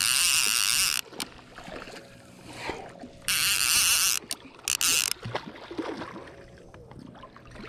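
Baitcasting trolling reel buzzing loudly in bursts while a hooked lake trout is reeled in at the boat. One burst lasts about the first second; another, broken into short pieces, comes a little after three seconds in. Quieter handling and water sounds fill the gaps.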